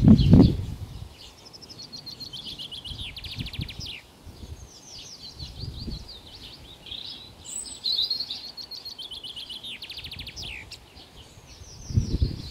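Several songbirds singing and chirping, with slurred notes and rapid trills at a few points. A low rumble on the microphone at the start and again near the end.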